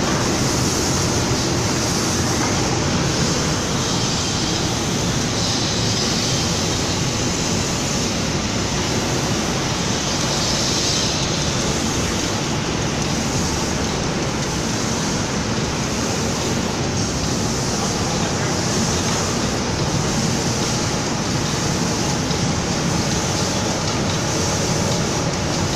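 Automatic paint spraying machine running: a steady mechanical noise with a strong hiss, unchanged throughout.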